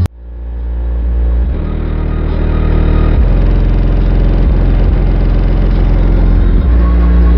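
Very loud, deep bass music played through a car's two 12-inch DB Audio T-rex subwoofers. It fades in at the start, and the low bass notes step to new pitches every second or two.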